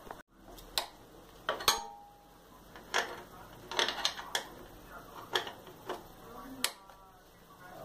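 Metal hand tool clinking and tapping against the steel frame and fittings of a Sundown MAX 125 motorcycle being taken apart: about ten scattered sharp clinks, one just before two seconds in ringing briefly.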